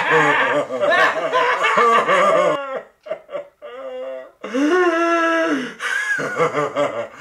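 Men laughing: a run of chuckles, then a few short separate hoots about three seconds in, then one long drawn-out laugh before more chuckling.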